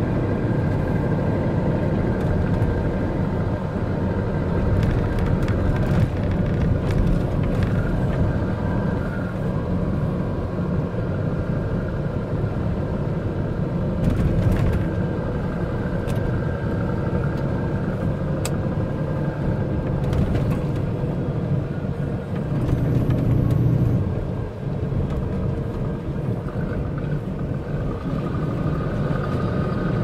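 Steady diesel engine and road noise heard inside the cab of a MAN concrete mixer truck under way, with a few faint clicks.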